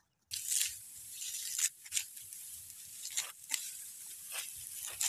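Hand sickle cutting through clumps of standing rice stalks: about half a dozen crisp, irregularly spaced cuts with dry rustling of the stalks between them.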